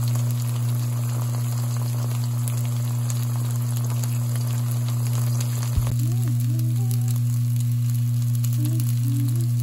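A Korean vegetable pancake (yachae-jeon) sizzling and crackling in hot oil in a frying pan, over a steady low hum. About six seconds in there is a short thump, and the sizzle then turns quieter.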